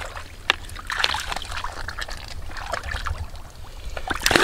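Hands sloshing and splashing through shallow muddy water as they grope in the mud, in irregular bursts, with a louder splash near the end as a snakehead fish is seized.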